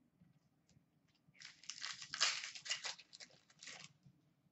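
Trading cards being handled: a run of dry rustling and crinkling that starts about a second and a half in and lasts about two and a half seconds.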